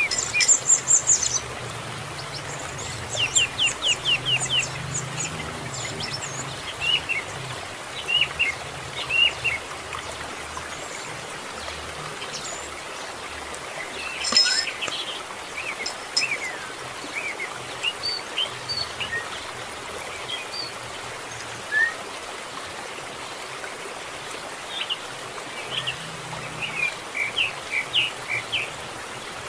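Young canary chirping: short, high chirps in quick runs, some strings of several falling notes a fraction of a second apart, over a steady hiss.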